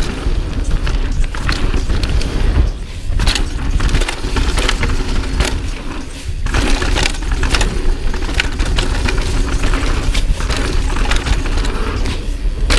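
Pivot Firebird 29 mountain bike riding down a rough trail: tyres running over dirt and rocks with frequent sharp knocks and rattles, and a steady rumble of wind on the camera microphone.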